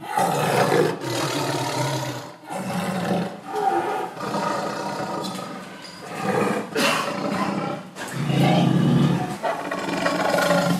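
Wild animals calling loudly in a run of long, deep calls with short breaks between them, heard while cheetahs bring down an antelope.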